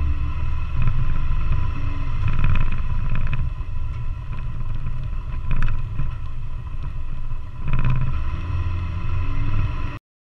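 Off-road vehicle driving along a dirt trail: engine and tyre noise with an uneven low rumble of wind buffeting the microphone. It cuts off suddenly to silence near the end.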